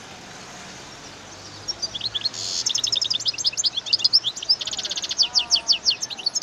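European goldfinch singing: after a quiet start, a fast run of high twittering notes and trills begins about two seconds in and carries on.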